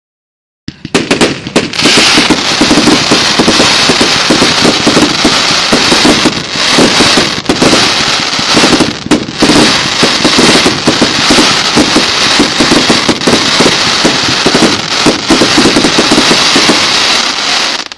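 Fireworks going off in a dense, nonstop barrage of rapid crackling bangs, starting about a second in and stopping suddenly near the end.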